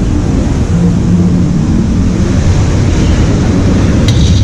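Rushing whitewater of a river rapids ride channel: a steady, loud, low roar, with a brief click about four seconds in.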